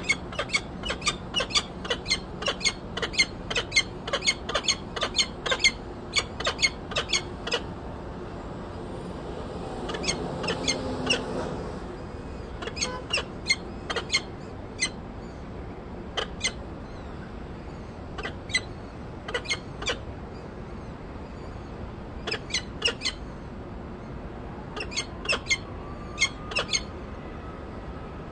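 Peregrine falcon chicks peeping in quick runs of short, high chirps, several a second, with brief pauses between runs: begging calls. A short rush of noise rises and fades about ten seconds in.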